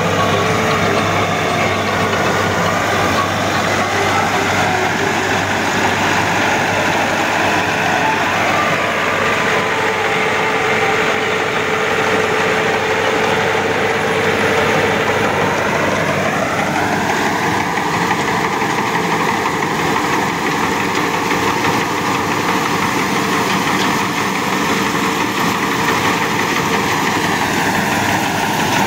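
Massey Ferguson 385 tractor's diesel engine working with a tractor-drawn straw chopper and its blower running, a loud, steady mechanical din. About halfway through, a whine in the noise rises in pitch and then holds at the higher pitch.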